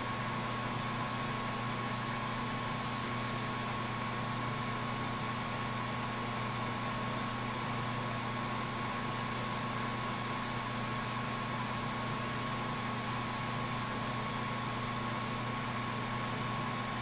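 Steady hiss of a lampworking bench torch flame heating glass rods, over a constant hum.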